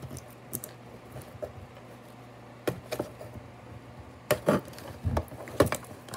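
Cardboard toy box with a clear plastic window being handled and pulled at, giving irregular taps, knocks and scrapes that come louder and more often in the second half.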